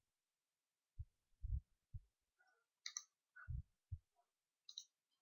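Near silence broken by a few faint, soft low thumps and a couple of brief sharper clicks, scattered and irregular: a computer mouse being clicked and moved on a desk during browser navigation.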